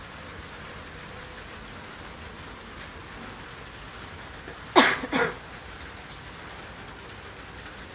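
Steady rain falling, with two short, loud sounds about half a second apart roughly five seconds in.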